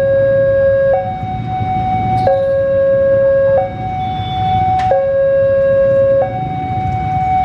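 Railway level-crossing warning alarm sounding a steady two-tone hi-lo signal, switching between a lower and a higher tone about every 1.3 seconds, warning that a train is approaching and the crossing is closed. A low engine rumble runs underneath.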